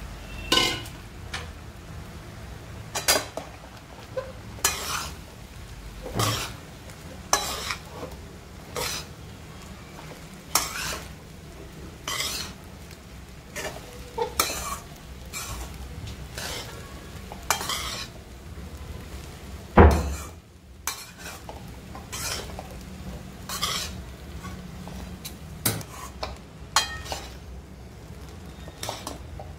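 Steel spoon stirring sago pearls in an iron kadhai, scraping and knocking against the pan in short strokes about every second and a half. One much louder knock comes about 20 seconds in.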